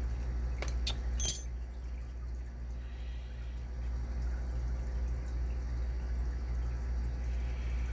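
Three sharp metallic clicks from the parts of a Faultless deadbolt being handled during disassembly, the last and loudest about a second and a half in, over a steady low hum.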